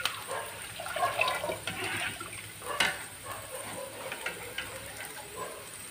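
Water poured from a small steel vessel into an aluminium pot, splashing as the pot fills for rasam, then a ladle stirring in the liquid. A single sharp knock about three seconds in.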